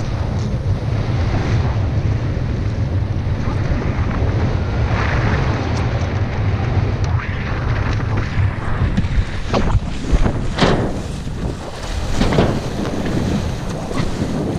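Wind buffeting the microphone of a camera mounted on a windfoil rig, with a heavy low rumble over the hiss of water rushing past. Several louder rushes come in the second half.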